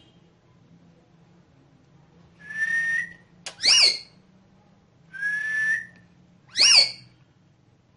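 Ringneck parrot whistling, twice in the same pattern: a held whistle that rises slightly at its end, then a short, loud whistle that sweeps up and falls back down. There is a brief click just before the first sweep.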